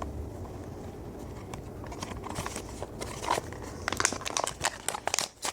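Plastic packaging crinkling and rustling as foam darts are handled, with a string of light clicks and taps that gets busier in the second half.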